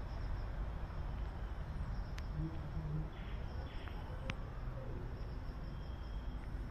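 Outdoor background noise: a steady low rumble with a couple of faint ticks and no clear animal call.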